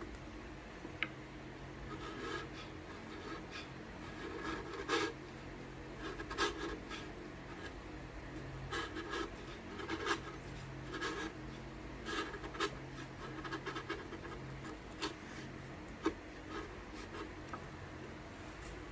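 Hand chisel paring a sliding dovetail tenon: irregular short scraping strokes of the steel edge shaving wood, with a few light ticks.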